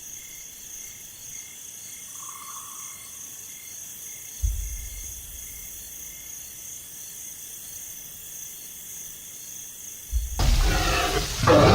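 Insect-like chirring, steady and evenly pulsing, joined about four seconds in by a low rumble. Near the end the chirring cuts off and a much louder sound with shifting pitch takes over.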